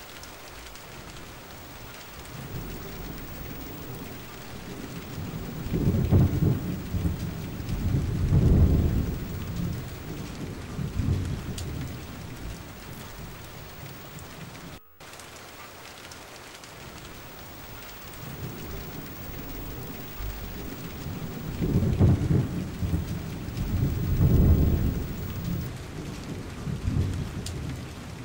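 Steady rain with two long, low rumbles of thunder, each swelling twice, one about a quarter of the way in and one near the end. There is a brief gap in the sound midway.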